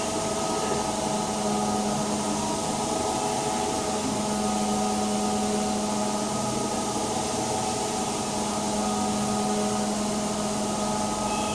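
Vacuum cleaner motor running steadily: an even rushing hiss with a steady motor hum.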